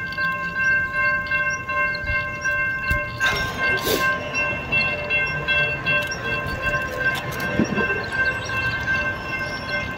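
A steady pitched tone, several notes stacked together, held without a break, with a short burst of rushing noise about three seconds in.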